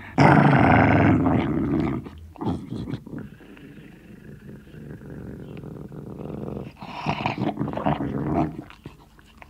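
Sealyham terrier growling over a bone. A loud growl fills the first two seconds, quieter low growling follows, and a second run of louder growls comes near the end.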